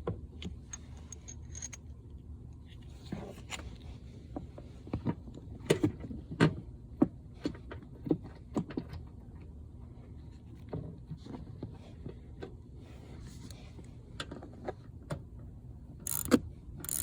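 Scattered metal clicks, taps and scrapes of a socket and the seatbelt anchor bolt being fitted, then a quick run of sharp ratchet clicks near the end as the bolt is tightened.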